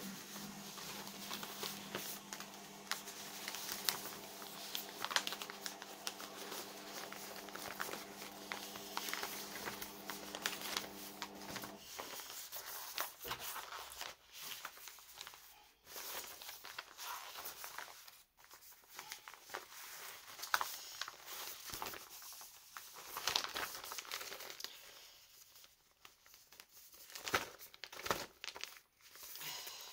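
Plastic packaging and paper of a cross-stitch kit crinkling and rustling irregularly as it is handled and unpacked. A steady low hum runs underneath and stops about twelve seconds in.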